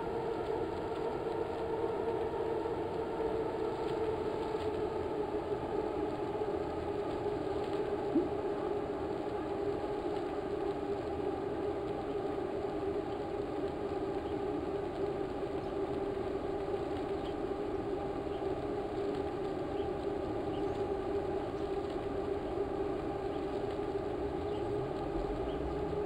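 Steady rushing wind and tyre noise of a bicycle riding at speed, with a hum in it that sinks slightly in pitch over the first few seconds. One sharp click about eight seconds in.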